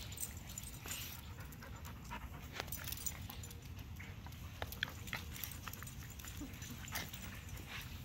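Small dogs playing: scattered light clicks and scuffles, with a dog panting.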